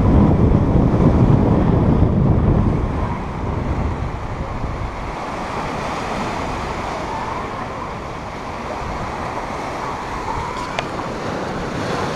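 Ocean surf washing into a small rocky cove, with wind rumbling on the microphone, heaviest in the first three seconds before settling to a steady wash.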